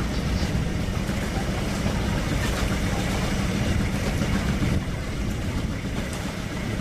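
An engine running steadily: a continuous low drone with a hiss of noise over it.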